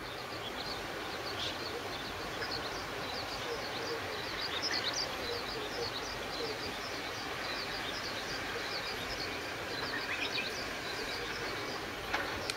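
Steady hiss of falling rain, with many short high ticks scattered through it and a sharp knock near the end.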